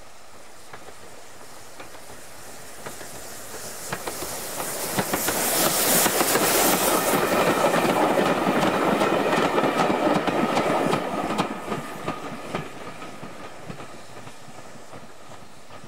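A steam tank locomotive and its vintage coaches pass close by. The sound builds over the first few seconds, is loudest from about five to eleven seconds in with the clickety-clack of wheels over rail joints, then fades away as the train goes off.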